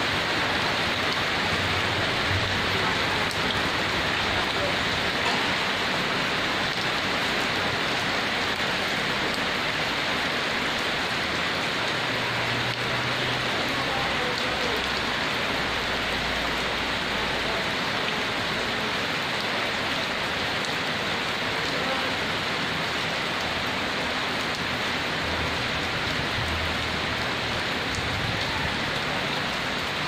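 Heavy rain falling steadily, an even, unbroken hiss of countless drops.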